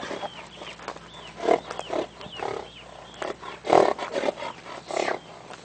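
Stallion calling at a mare in short, loud, rough bursts, several times, the loudest about two-thirds of the way through.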